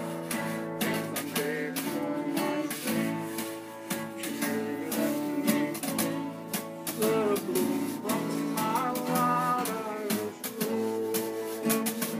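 Acoustic guitar strumming a tune, with a cardboard box played as a drum with brushes, tapping out the beat throughout.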